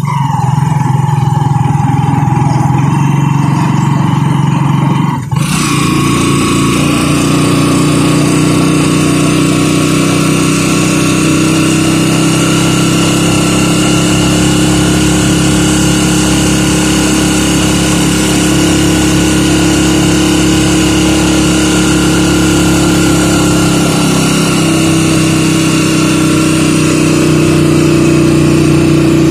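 Motorcycle engine of a tricycle (motorcycle with sidecar) running steadily at cruising speed, its pitch shifting slightly near the end. A steady hiss from tyres on the wet road comes in about five seconds in.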